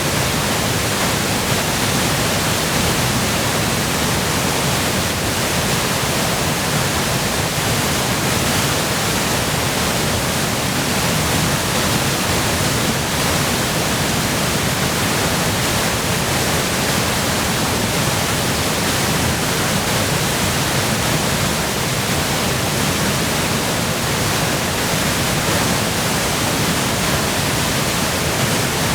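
Waterfall in full spate, swollen by spring melt and heavy rain: a loud, steady rush of falling water with no breaks.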